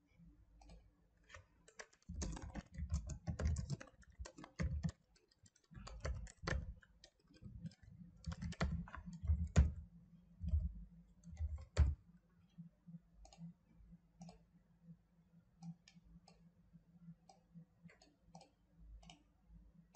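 Computer keyboard typing and mouse clicks in irregular bursts, busy for the first half and thinning to sparse single clicks later.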